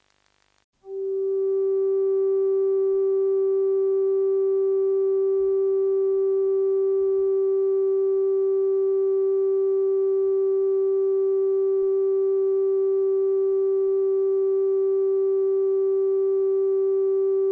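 A single loud, steady electronic tone of fairly low pitch, the off-air tone of a TV channel that has shut down. It begins about a second in and holds unchanged.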